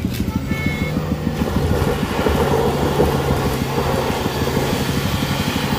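Toyota HiAce van's engine running hard at a steady pitch under heavy load as it climbs a loose, rocky slope, with its tyres spinning and scrabbling on the gravel.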